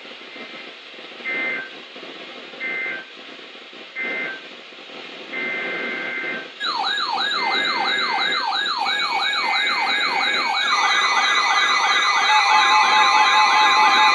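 EAS/SAME digital data bursts from a weather radio alert: three short end-of-message bursts, then longer header bursts for the next warning. From about halfway, electronic yelp sirens sweep up and down about three times a second. More sirens and a steady alert tone pile on, and the sound grows louder toward the end.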